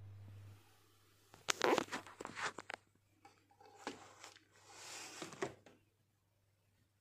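Cat food containers on a shelf being handled: two bursts of plastic crinkling and rattling, one about a second and a half in and one around four to five seconds in, the second as a hand grips a plastic bottle of dry cat kibble.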